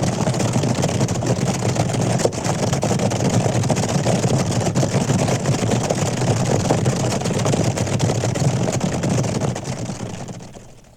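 Cattle stampede: a dense, continuous rumble of many running hooves, fading out near the end.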